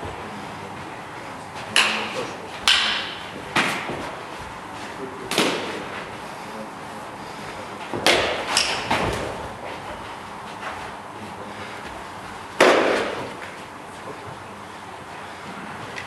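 Several sharp smacks and thuds with a short hall echo, scattered irregularly and loudest about three quarters of the way through: blows and lunging footwork of two people sparring with training knives.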